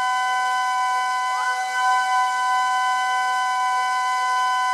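A single long, steady horn-like musical note held at one pitch, with a faint rising slide about a second and a half in.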